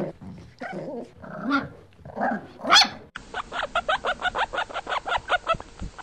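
A pug gives a few short, irregular whines and yips. About three seconds in, these give way to guinea pigs squeaking in a fast, even series of short squeaks, about six or seven a second.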